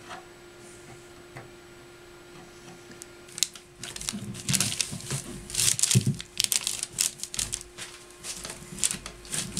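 Quiet room tone with a faint steady hum. About three and a half seconds in, close-up crinkling and rustling starts, with soft knocks: hands handling something right at the microphone.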